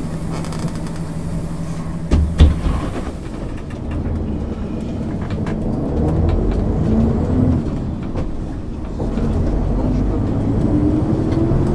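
Diesel engine of a 1999 MAN ÜL 353 intercity bus, heard on board. It runs steadily at first, gives one loud knock about two seconds in, then pulls away: its note rises, drops back briefly and rises again as the bus accelerates through the gears.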